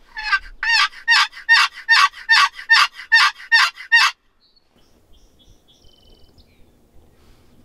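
A series of about eleven hen turkey yelps on a turkey call, evenly paced at a little over two a second, stopping about four seconds in; it is calling to an approaching gobbler.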